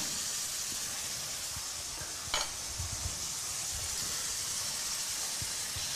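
Pappardelle and bolognese sauce with butter sizzling in a hot sauté pan as they are tossed with tongs, a steady hiss. There is one short click about two seconds in.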